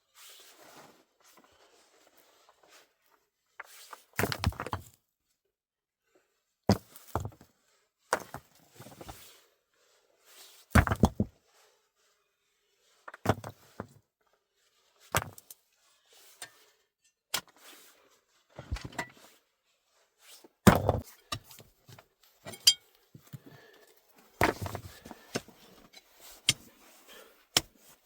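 A series of short, irregular knocks and thuds, about one to three seconds apart, with near silence between them, as of things being handled or struck during hands-on work.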